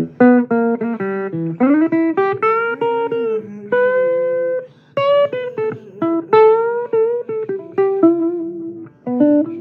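Blues guitar playing a lead line of single picked notes, several of them bent up and back down in pitch.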